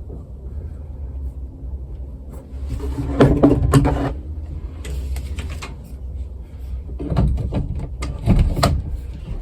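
Clicks and knocks of metal parts as a steering wheel quick-disconnect hub is handled and worked, in several clusters over a low steady rumble.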